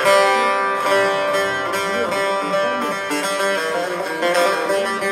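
Instrumental background music played on a plucked string instrument, a run of quick notes at a steady level.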